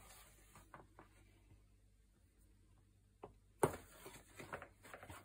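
Faint room tone, then about three and a half seconds in a single sharp knock followed by light clicks and scrapes. This is a plastic scoop knocking against a plastic tub of flour as it is dug in for another scoop.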